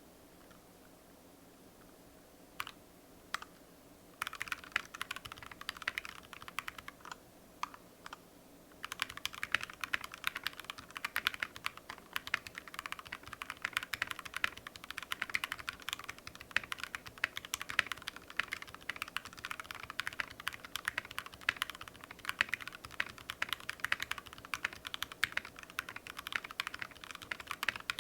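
Mechanical keyboard with lubed Gateron Milky Yellow linear switches being typed on. A few single keystrokes come first, then a burst of typing about four seconds in, then steady fast typing from about nine seconds in.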